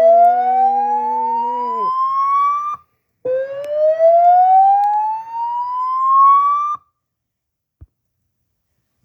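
Slow-whoop evacuation tone of a Notifier voice evacuation message: two slow rising sweeps, each about three and a half seconds long with a brief gap between them, the alert that comes before the spoken announcement. A steadier lower tone underneath fades out during the first sweep, and after the second sweep the tone stops.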